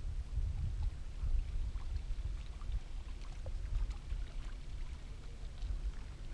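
Uneven low rumble of wind buffeting the microphone, with faint scattered ticks of water lapping against the boat's hull.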